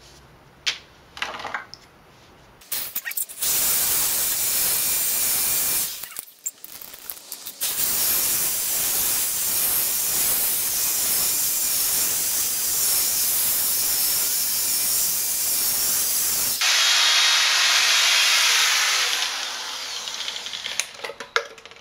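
Power drill spinning a sanding disc against a plastic headlight lens, sanding off the oxidised surface. It runs in three stretches: a few seconds, a short stop, a long run of about nine seconds, then a final run with a thinner, higher hiss that fades out near the end.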